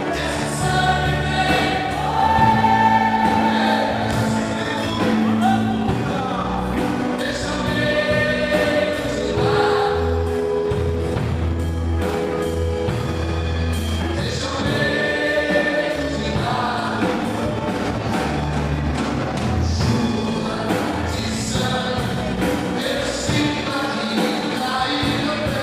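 Gospel hymn sung by a choir with band accompaniment, sustained voices over a steady bass line.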